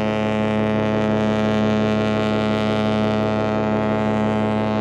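Cruise ship's horn sounding one long, steady, low blast, held throughout without a break.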